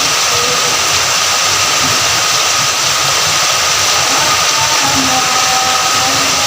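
Steady rain falling, a dense, unbroken hiss of drops.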